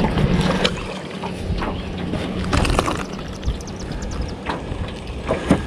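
A small largemouth bass splashing at the surface as it is reeled to the boat and lifted out of the water, with scattered sharp ticks of line and handling noise. A faint steady low hum runs underneath.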